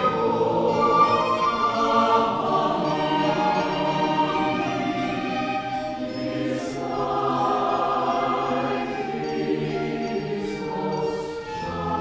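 College choir singing held notes in several parts, accompanied by piano, flute and violin.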